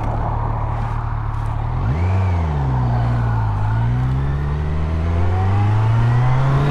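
2019 Kawasaki Z900's inline-four engine under the rider, with wind rush. It runs steadily, then about two seconds in the revs rise and fall quickly, and after that they climb steadily as the bike accelerates.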